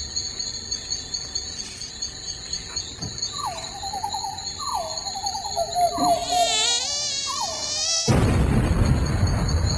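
Mosquito whining over a steady high chirping of crickets, swooping down in pitch several times, then a sudden loud burst of noise about eight seconds in as the mosquito explodes, a comic sound effect.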